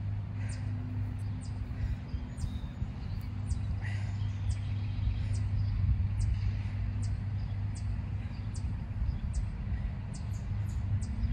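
Outdoor ambience: a steady low engine hum with short high bird chirps repeating about twice a second and a few lower bird calls.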